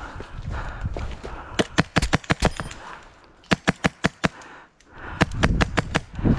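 Airsoft gun firing in three short strings of rapid, sharp shots, with footsteps and movement noise before and after the shooting.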